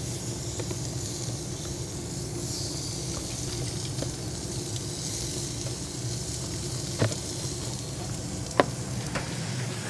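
Red deer fillet pieces searing on the hot grate of a Weber Traveler gas grill, a steady sizzle. Two sharp clicks stand out, about seven seconds in and again a second and a half later.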